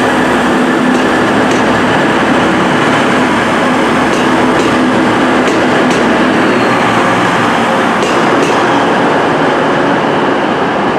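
TransPennine Express Class 185 diesel multiple unit moving along the platform, its underfloor diesel engines giving a loud steady drone. Sharp clicks of the wheels over rail joints come every second or so.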